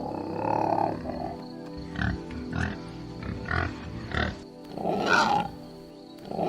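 Pig grunting in a run of short calls, with a longer, louder grunt about five seconds in, over background music.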